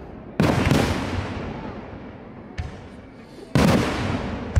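Fireworks exploding: a pair of loud booms about half a second in, a smaller bang near the middle, and another pair of loud booms near the end, each dying away slowly in a long rumble.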